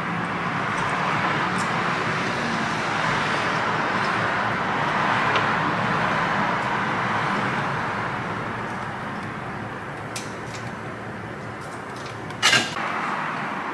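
Steady rushing noise of moving air that swells over the first few seconds and then eases off, with a few light ticks and a sharp click near the end.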